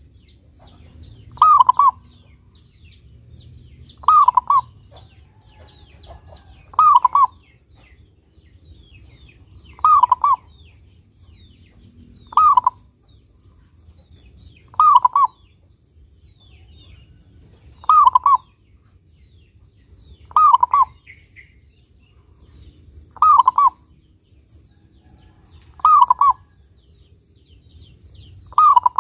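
Zebra dove (perkutut) cooing, one short phrase repeated evenly about every two and a half to three seconds. Faint high chirps of small birds run underneath.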